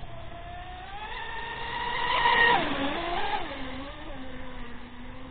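Twin brushless electric motors of an RC racing catamaran whining at speed as it runs past. The whine rises a little and grows loudest about halfway through, then falls in pitch and wavers before settling lower and fainter.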